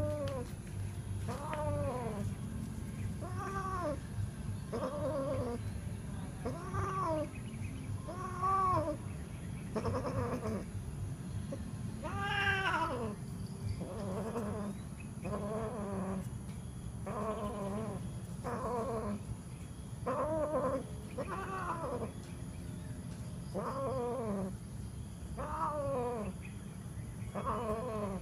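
Domestic cats mating, with a cat yowling over and over, about one drawn-out call a second, each rising then falling in pitch; one call about halfway through is higher and louder. A low steady rumble runs underneath.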